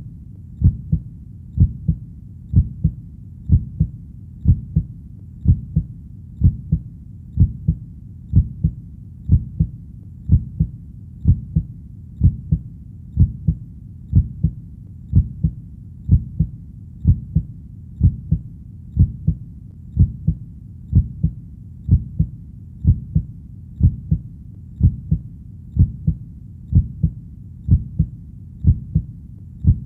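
Human heartbeat: a steady, even rhythm of low double thumps (lub-dub), about one beat a second.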